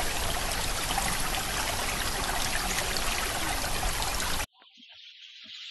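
Steady rushing of running water, like a stream, that cuts off suddenly about four and a half seconds in. A faint high hiss then fades in and grows louder near the end.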